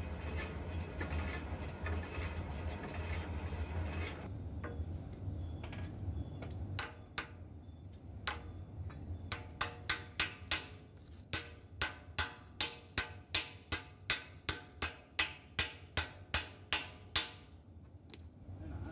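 A hammer drives a flanged steel bush into the pivot bore of a JCB bucket: first a few single blows, then a steady run of ringing metal-on-metal strikes, about two to three a second, that stops near the end. A steady low hum runs through the first few seconds.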